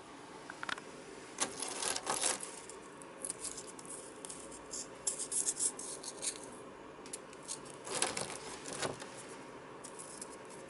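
Irregular light clicking, rattling and scraping of small hard things being handled, in clusters about two seconds in, through the middle, and again near eight seconds.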